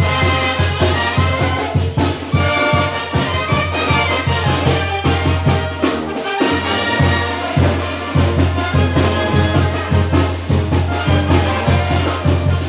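Oaxacan banda de viento playing a chilena live: trumpets, trombones and clarinet over a sousaphone bass line and bass drum with cymbal, keeping a steady dance beat. The bass drops out briefly about six seconds in, then comes back.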